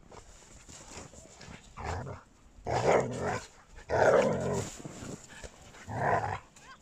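A Samoyed and a smaller dog play-fighting in snow, one of them making four loud barking, growling play noises about a second apart, the loudest near the middle.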